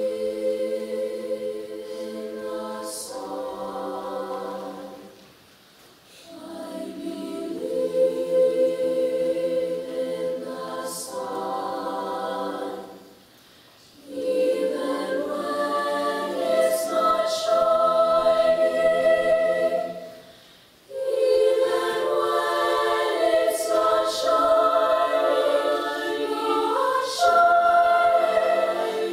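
Women's a cappella choir singing slow sustained chords in phrases, with a short breath pause between phrases about every seven seconds. The later phrases are louder and reach higher.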